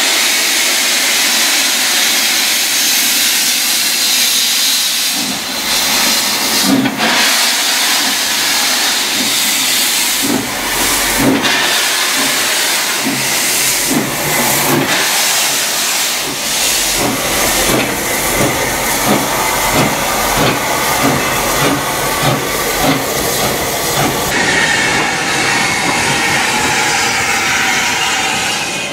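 Furness Railway No. 20, an 1863 Sharp Stewart steam locomotive, hissing loudly as steam blows from its front end. About five seconds in, slow exhaust chuffs come in at roughly one a second as it pulls away.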